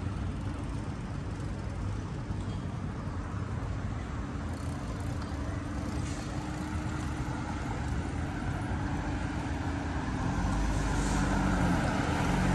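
City street traffic: cars passing on the road in a steady hum, growing louder near the end as a vehicle comes close.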